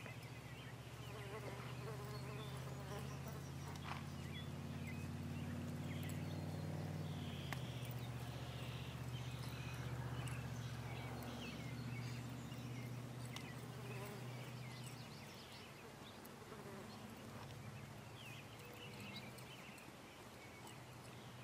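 A low, steady buzzing hum that drops in pitch about seven seconds in and fades out about fifteen seconds in.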